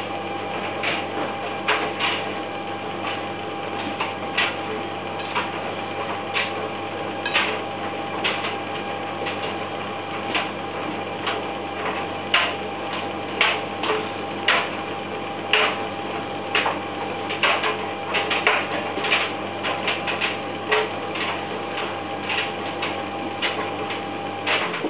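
Servis M2001W washing machine tumbling wet laundry during a synthetics wash. A steady motor hum and whine runs under irregular clicks and thuds as the load turns over in the drum. The motor sound cuts off at the very end.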